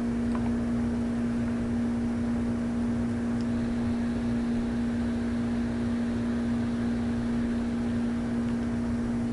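A steady hum at one pitch with overtones, over a faint even hiss, unchanging throughout.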